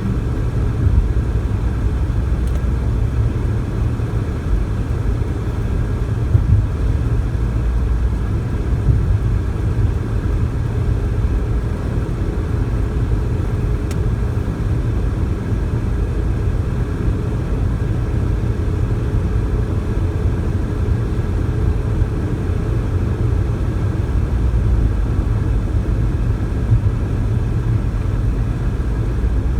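Steady road noise inside a car cabin while driving on the highway: a low rumble from the tyres and engine with a faint steady hum over it.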